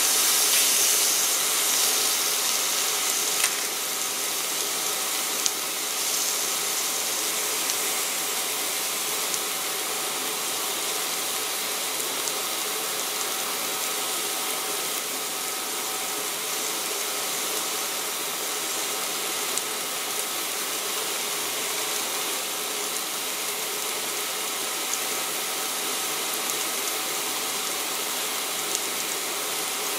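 T-bone steak sizzling in a cast iron grill pan, a steady hiss with a few small pops. It is loudest in the first couple of seconds, as tongs move the steak, and a faint steady tone runs under it.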